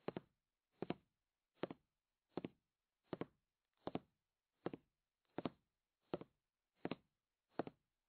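Steady percussion beat of short double knocks, about four every three seconds, with dead silence between them.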